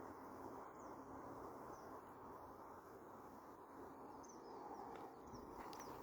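Faint outdoor ambience: a steady low hiss with a few short, high bird chirps scattered through it.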